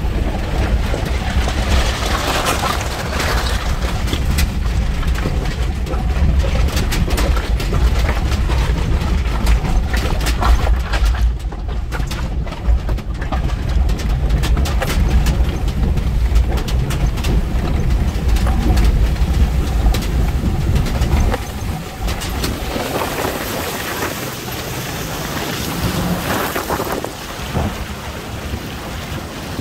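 Mitsubishi Pajero 4WD driving through a shallow river: a heavy engine and drivetrain rumble inside the cab, with water sloshing against the body. About two-thirds of the way in, the rumble drops away and the rush and splash of the bow wave, with wind on the microphone, take over, heard from beside the vehicle.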